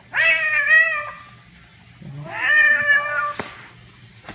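Domestic cat giving two drawn-out, wavering yowling meows, each about a second long, while it grapples with and bites its own tail: an agitated, hostile call at the tail.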